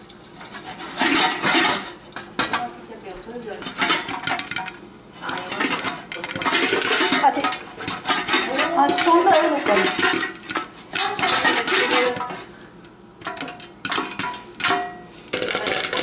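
Lidded stainless-steel saucepan shaken on an electric coil burner: the pan and lid rattle and clatter in irregular bursts, with sharp pops from popcorn popping inside, coming thick and fast near the end.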